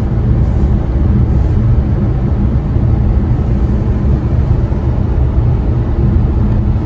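Steady low road and tyre rumble inside the cabin of a moving 2021 Kia Sorento.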